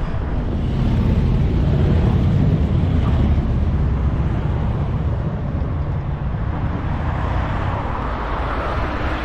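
Steady wind rush on the microphone of a camera on a moving bicycle, with road noise beneath it.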